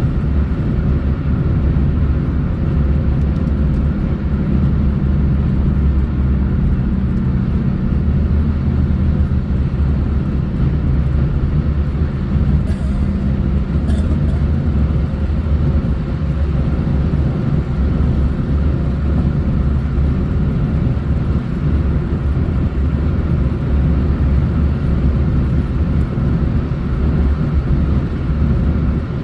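Steady road noise of a car on the move: a continuous low rumble with a constant hum, unchanging throughout.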